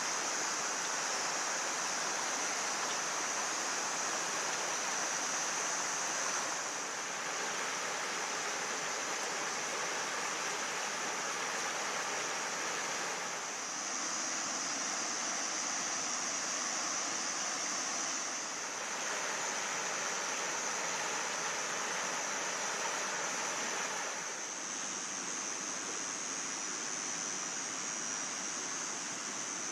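Mountain stream water rushing steadily over rocks, an even rushing noise with a steady high hiss on top.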